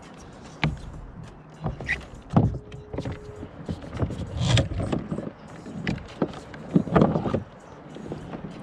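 Irregular knocks, clicks and rubbing of gear being handled aboard a fishing kayak, with a short steady tone about a third of the way in.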